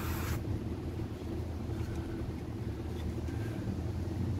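A brief hiss of aerosol contact-cleaner spray right at the start, then a steady low hum.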